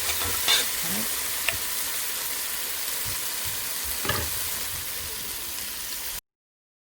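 Curry powder and masala frying in hot oil in a pot: a steady sizzle with a few knocks of the stirring spoon. The sound cuts off abruptly about six seconds in.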